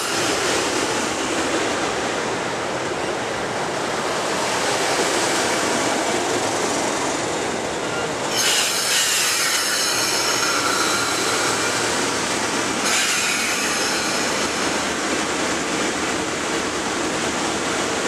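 Metro-North electric multiple-unit commuter train rolling into the station and slowing to a stop, a steady rush from wheels and running gear. About halfway through, the wheels and brakes squeal with several high tones for four or five seconds.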